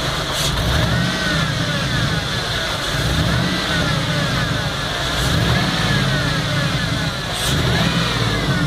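5.3-litre V8 idling with its revs rising and falling again about every two seconds: an idle surge, which the owner says appears only once the engine is warmed up.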